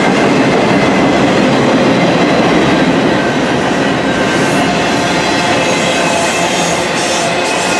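A CSX intermodal freight train's double-stack container cars and trailer cars rolling past close by. The steel wheels make a loud, steady noise on the rail.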